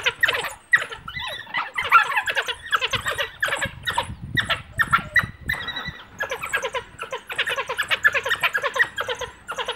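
A pack of African wild dogs twittering: many rapid, high-pitched chirping and squealing calls from several dogs at once, the excited calling of a pack on a hunt, thinning briefly around five to six seconds in.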